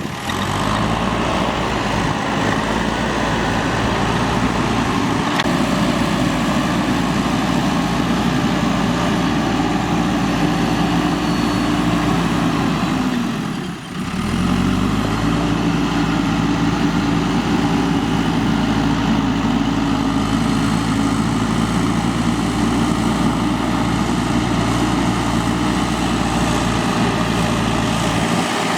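Diesel engine of a JCB 3DX backhoe loader running steadily at working revs, with a brief sag in engine pitch and loudness about halfway through.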